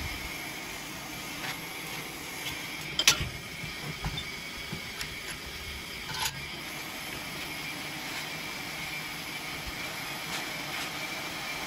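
Handheld gas torch on a blue fuel cylinder burning with a steady hiss, used to heat steel rose petals for bending. A sharp metallic clink about three seconds in and a lighter one about six seconds in.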